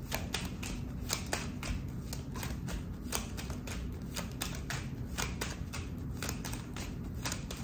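A deck of fortune-telling cards being shuffled by hand in an overhand shuffle: a quick, irregular run of soft card clicks and slaps, several a second.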